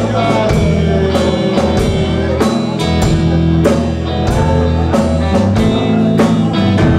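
Punk band playing live: a drum kit keeps a steady beat under loud amplified electric guitar.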